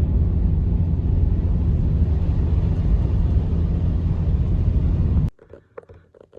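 A loud, steady low rumble that cuts off abruptly about five seconds in, followed by a few faint small knocks and rustles.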